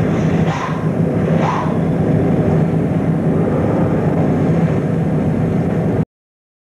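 Steady, loud rumbling noise on an old videotape soundtrack, with a couple of brief rising sounds in the first second or two; it cuts off suddenly about six seconds in.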